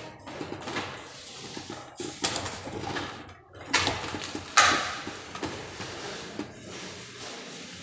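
Hand tool scraping and smoothing wet plaster of Paris along the edge of a ceiling design in irregular strokes, with a few louder scrapes around the middle.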